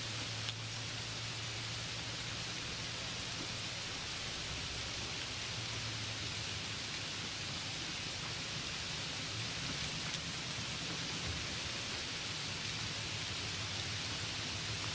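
Steady, even hiss with a low hum beneath it that never changes, and a faint click about half a second in.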